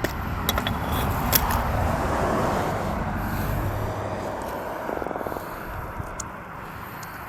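Surf washing on the beach with wind buffeting the microphone; the wash swells in the first few seconds and then fades. A few sharp clicks of handling in the first second or so.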